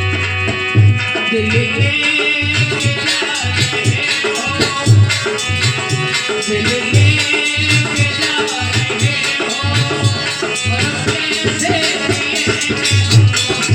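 Devotional music with a steady beat on a deep hand drum, a shaker-like rattle and a sustained melodic line.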